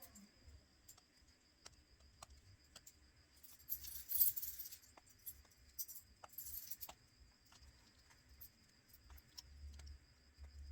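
Light clicks and clinks of small repair tools handled against a phone and bench, with two short scratchy rustles in the middle.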